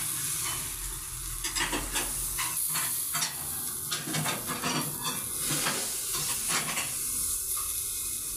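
Green peppers and tomato slices sizzling on a hot electric sac griddle, with scattered clicks of wooden tongs against the food and plate as they are turned.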